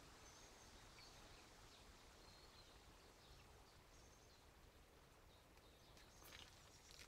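Near silence: faint woodland ambience with a few faint, short, high bird chirps, and a couple of soft clicks or rustles near the end.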